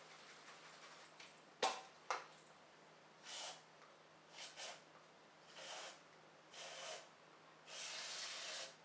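Whipped cream squirted from a dispenser onto rolled ice cream in about five short, hissing spurts, preceded by two sharp clicks a little under two seconds in.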